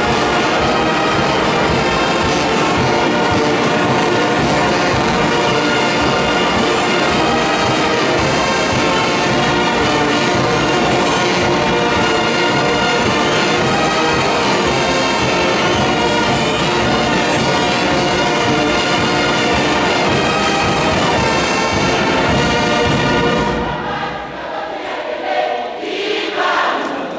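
Marching brass band with sousaphones, trumpets and saxophones playing loudly together. Near the end the band cuts off abruptly, leaving a thinner, quieter sound.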